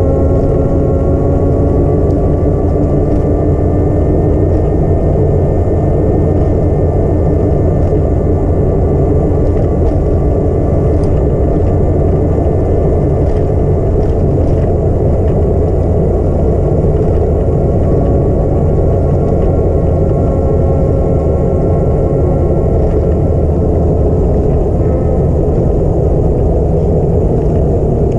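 A vehicle driving slowly, its engine running with a steady low rumble of road and wind noise, its engine note drifting gently up and down in pitch.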